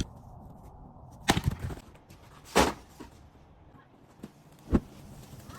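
Wood being chopped: four sharp chops, one right at the start, one just over a second in, one about halfway and one near the end, with a couple of lighter knocks between.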